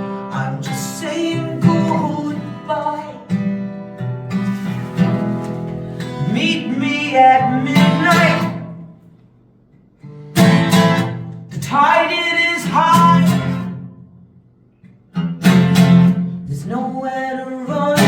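Acoustic guitar strummed in a live song, with a voice singing along, and the playing breaks off briefly twice, about halfway and about two-thirds of the way through.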